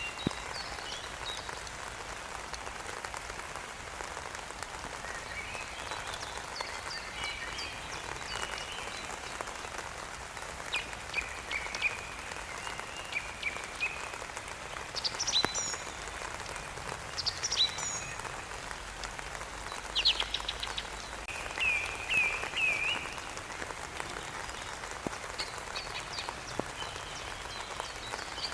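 Steady rain falling, with birds chirping and singing over it in short calls; the calls come thicker and louder through the middle, including a quick run of four notes.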